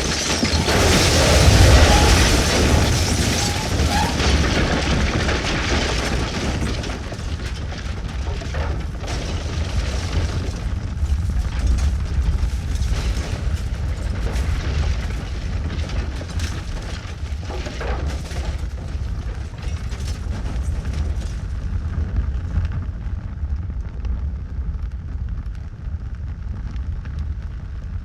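Explosion sound effect: a loud blast about two seconds in, then a long low rumble with scattered crackles that slowly dies down, the hiss fading out over the last few seconds.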